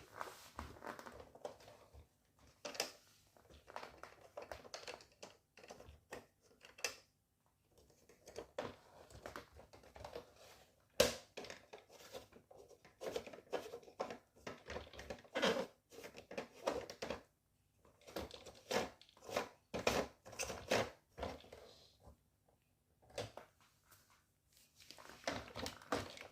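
Plastic handling noises: scattered clicks, light knocks and rustling come and go, with short silent gaps between them.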